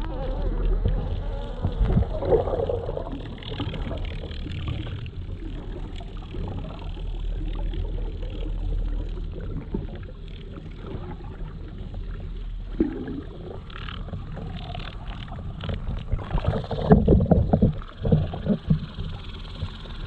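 Muffled underwater rumble and water noise picked up through a GoPro's waterproof housing as the camera is dragged through the water. Near the end there is a run of knocks and rattles.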